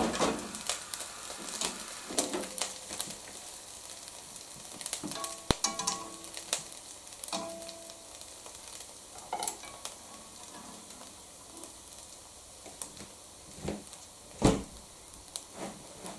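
Natto beans frying in butter in a non-stick frying pan, sizzling steadily while chopsticks scrape and tap against the pan, with a louder knock near the end.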